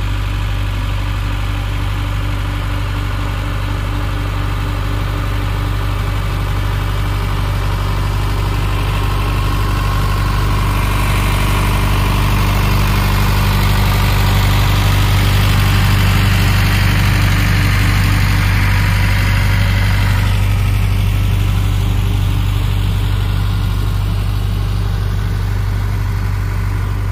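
Sonalika tractor's diesel engine running steadily under load as it pulls a potato planter through the field. The sound grows a little louder through the middle as the tractor passes close, then eases off.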